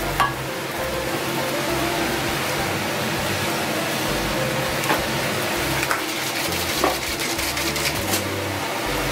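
Background music with a stepping bass line over a steady hiss of kitchen air noise. A few light clicks and clinks come as the stainless-steel bowl is handled, one just after the start and two more about five and seven seconds in.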